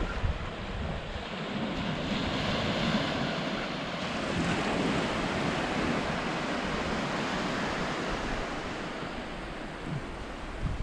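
Small waves washing onto a shallow beach, with wind blowing on the microphone; the surf swells and eases.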